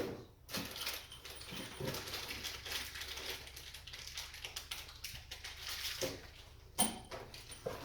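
Screwdriver turning a small security screw into the smart lock's mounting: faint rapid clicking and scraping of metal on metal, with a sharper knock about seven seconds in.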